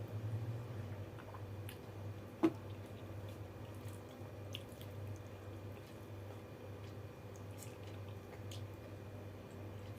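Wet, squishy chewing and eating of water-soaked rice, with scattered faint clicks and one sharp click about two and a half seconds in. A steady low hum runs underneath.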